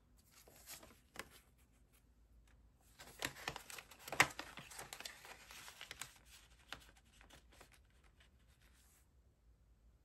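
Paper banknotes rustling and crinkling as they are handled and slipped into a budget binder's envelope page, with light clicks and one sharp tap about four seconds in.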